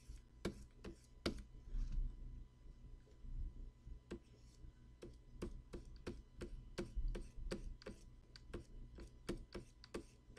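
Faint, uneven light clicks and taps, two or three a second, from a stylus and keys being worked at a Wacom Cintiq pen-display setup. A low steady hum sits underneath.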